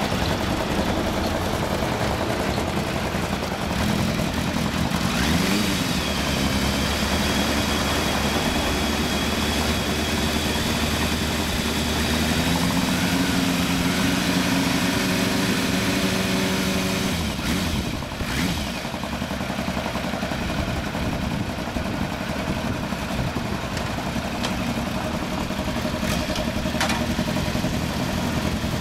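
Motorcycle engines idling, among them a Yamaha FZ750 inline-four breathing through a Poison S1R aftermarket exhaust. There is a short rev about five seconds in, and the engine note shifts for a few seconds around the middle.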